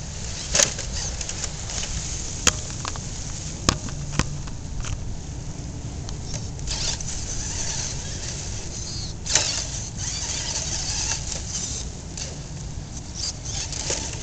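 Radio-controlled TLT rock crawler with a Ford Courier body working over boulders: about five sharp clacks of its wheels and chassis on the rock, over a steady rush of wind on the microphone and surf.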